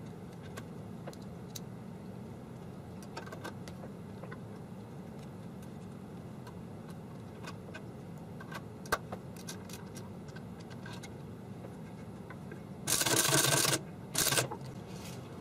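Small metal parts of a 1949 R.C. Allen Model 75 mechanical adding machine being handled by the ribbon spool: faint scattered clicks and one sharper click. Near the end come two much louder scratchy bursts, the first a bit under a second long and the second shorter.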